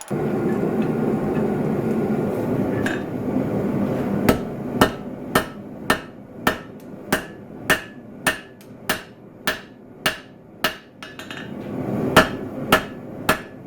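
Hand hammer striking hot Damascus steel on an anvil in an even rhythm of about two blows a second, with a short pause near the end, as the blade-to-tang transition is forged. Before the hammering starts there is a steady rushing noise, which carries on more faintly beneath it.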